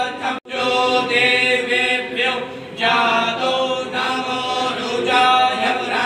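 Several voices chanting Vedic Sanskrit mantras together in long, held tones, cutting out for an instant about half a second in.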